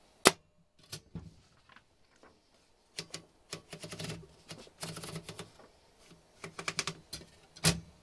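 Royal HH manual typewriter being loaded with paper: a sharp clack just after the start, then runs of quick clicks as the platen knob is turned to feed the sheet in, and another sharp clack near the end.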